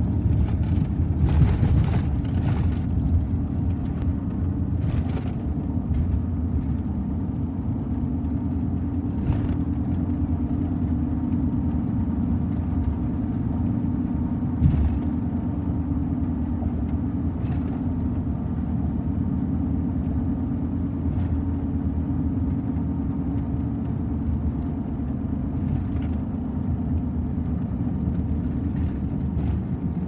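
Steady low road and engine rumble of a moving car, heard from inside its cabin, with a few brief thumps scattered through it.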